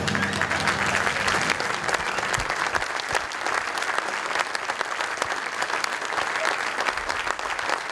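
Audience applauding steadily, a dense patter of many hands clapping, with a low rumble fading out in the first second and a half.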